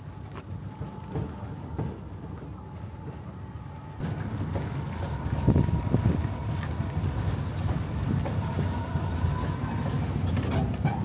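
Island shuttle bus driving along: a steady low rumble of the moving vehicle with a faint steady high tone, wind, and scattered rattles and knocks. It gets louder about four seconds in.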